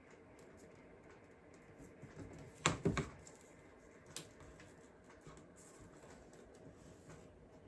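Quiet handling of paper and plastic craft materials by hand, with a quick run of three sharp clicks or knocks a little under three seconds in and one lighter click about a second later.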